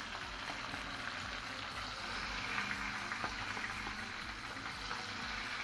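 Hot oil sizzling steadily in a frying pan with small crackling pops, as whole fried tangra catfish are lifted out of it with a wooden spatula.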